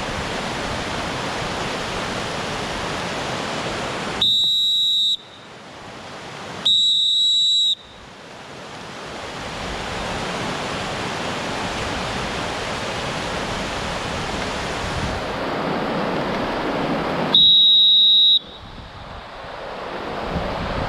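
Steady rush of a whitewater rapid, cut through by three loud, steady blasts of a safety whistle, each about a second long: two close together about four and seven seconds in, and a third near the end. The blasts are signals to the paddlers swimming after their canoe capsized in the rapid.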